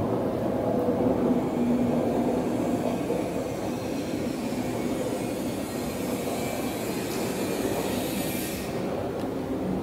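Steady mechanical rumble and hiss of machinery running, with a faint hum and a brief brighter hiss about eight seconds in.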